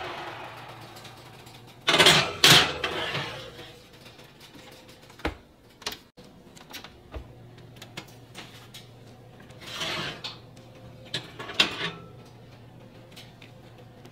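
Kitchen handling sounds: utensils and dishes clattering and knocking, loudest in a cluster about two seconds in, with scattered sharp clicks and two more clatters near the end, over a faint steady hum.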